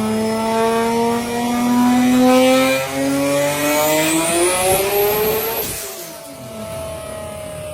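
Toyota Supra Mk4's turbocharged 2JZ straight-six accelerating hard, its pitch rising steadily with a high turbo whistle climbing alongside. About six seconds in the engine note cuts off sharply and falls to a lower, quieter tone.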